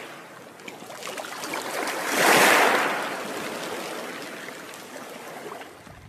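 Sound-effect wash of rushing water that swells to a peak about two and a half seconds in and then slowly fades away.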